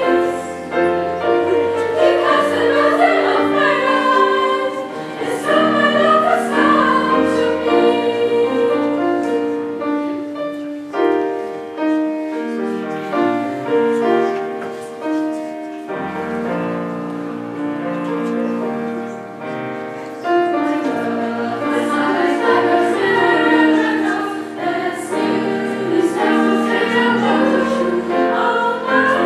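School choir singing in several parts, holding sustained chords that move in pitch, with piano accompaniment.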